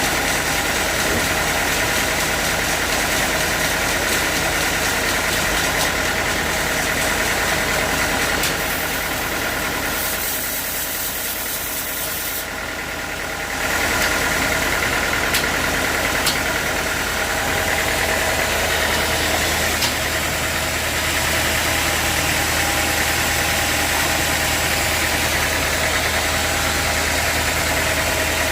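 Sawmill engine running steadily. It drops a little in loudness for a few seconds about halfway through, then comes back up.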